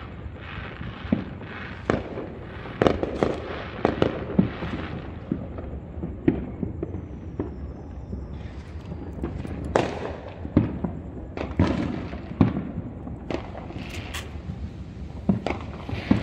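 Fireworks going off: many sharp bangs and pops at irregular intervals, sometimes several a second, with crackling in between.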